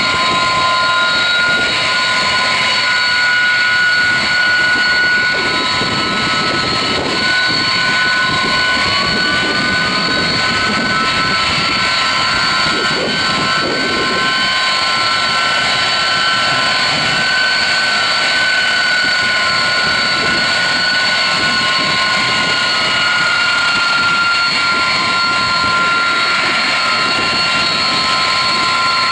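Boeing 747-200F's four turbofan engines running loud and steady, a rushing noise with several high, constant whining tones; one of the tones rises a little about ten seconds in.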